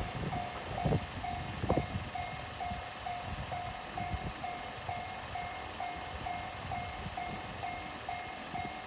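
Japanese level-crossing warning alarm ringing, a steady electronic ding repeating about twice a second. Under it, the low rumble of a passing freight train, with a couple of knocks from its wheels in the first two seconds, easing off after that.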